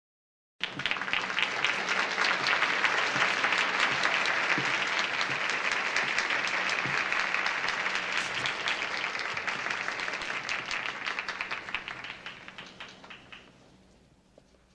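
Large concert audience applauding, many hands clapping at once, starting abruptly and dying away over the last few seconds.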